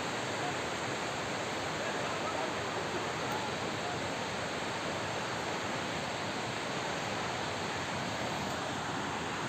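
Steady rush of a waterfall, the water falling and churning without a break.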